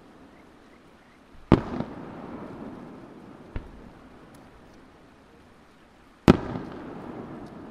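Aerial firework shells bursting: a loud bang about a second and a half in, a smaller one a couple of seconds later, and the loudest bang near the end. Each bang trails off in a long rumbling echo.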